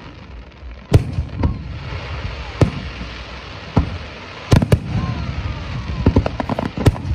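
Aerial fireworks shells bursting overhead: a string of sharp booms at uneven intervals, about one a second, with a close double bang midway, over steady crackling.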